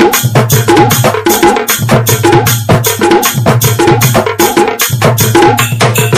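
Background music with a fast, steady percussion beat over a bass line.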